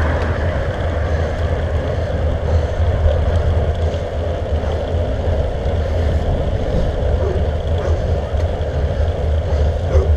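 Steady wind and riding noise on the microphone of a camera mounted on a road bike's handlebars during a climb: a constant low rumble with no breaks.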